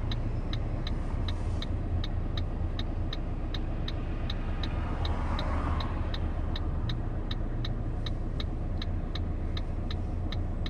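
Ford Focus diesel engine idling, heard from inside the cabin, with the turn-signal indicator ticking evenly about three times a second. A brief swell of noise rises and fades about five seconds in.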